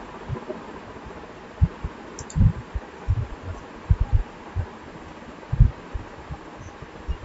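Irregular low, muffled thumps, about fifteen in all and uneven in spacing, over a steady faint hiss.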